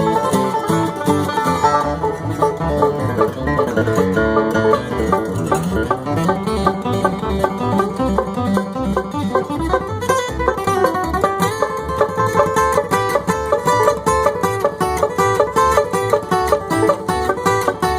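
Bluegrass string band playing, with fast, steady banjo picking to the fore over guitar.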